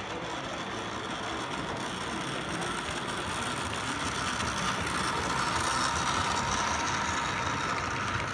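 Model steam locomotive and its train of freight cars running along the track: a steady mechanical running noise of motor and wheels on rails that grows louder as the train comes closest, about two-thirds of the way through.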